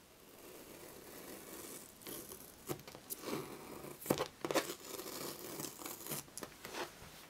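Tape being lifted with a craft knife and peeled off a painted canvas: papery rustling and tearing, with a few sharp crackles from about two seconds in.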